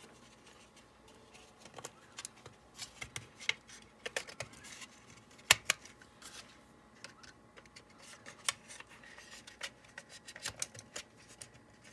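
Light, irregular clicks and taps of a plastic model center-beam flat car and its white plastic lumber-load sections being handled and fitted together, with the small magnets in the loads clicking into place. One sharper click about halfway through.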